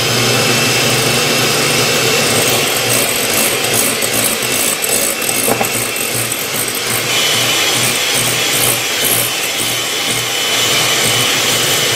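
A 200 W electric hand mixer runs steadily, its twin wire beaters whipping egg whites in a glass bowl. The whites are being beaten with sugar toward stiff meringue.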